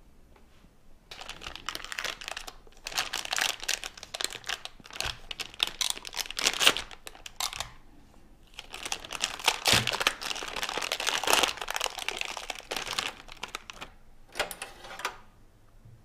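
Plastic hard-drive packaging crinkling and rustling in the hands as the drive is unwrapped. It comes in two long spells with a short pause between them, then one brief crinkle near the end.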